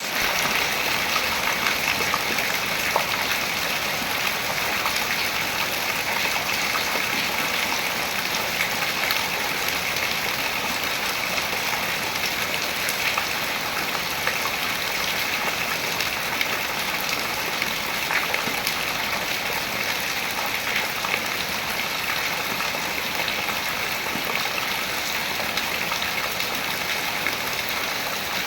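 Rain falling onto the water of a reservoir: a steady hiss of many small drop impacts, with scattered louder single drops.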